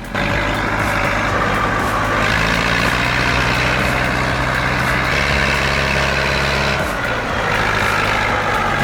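IMT 558 tractor's diesel engine running steadily under heavy load, a continuous drone that eases briefly about seven seconds in and then picks up again.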